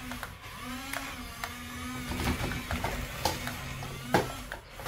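Toy RC excavator's small electric motors and plastic gearboxes whining as it tracks and swings its boom, the pitch shifting as the motors change speed, with a few sharp plastic clacks, the loudest near the end.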